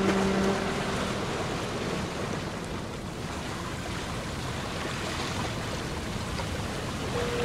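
Harbour ambience: a steady wash of sea waves and wind. A deep ship's horn ends about half a second in. Near the end a single steady higher tone begins.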